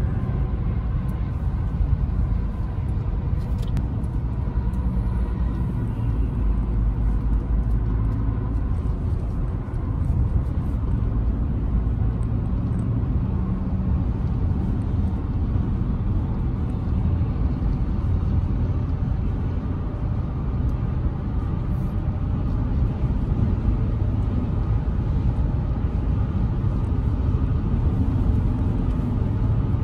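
Steady low road and engine rumble inside a car cabin, heard while driving on a highway.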